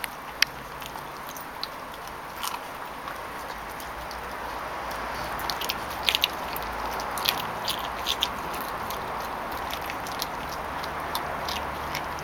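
Labrador puppy chewing a raw chicken leg, with irregular sharp clicks and cracks of her teeth on the bone, coming thickest in the middle.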